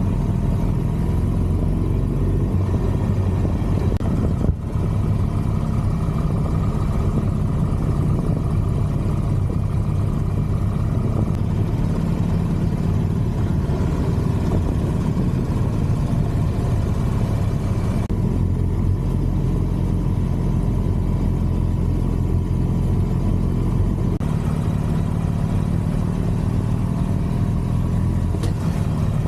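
Harley-Davidson Street Glide's V-twin engine running steadily while riding, with wind and road noise; the level dips briefly about four and a half seconds in.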